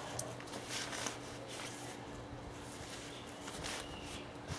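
Fabric wardrobe cover rustling faintly in a few short scattered bursts as it is handled and worked down over the metal frame.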